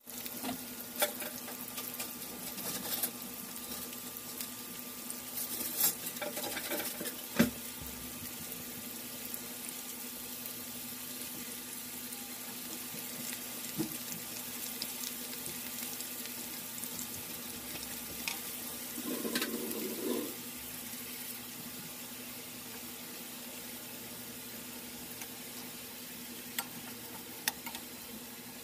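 Chopped onions frying in hot oil in a kadai: a steady sizzle, with a few sharp clicks in the first several seconds and a short burst of stirring about two-thirds of the way through.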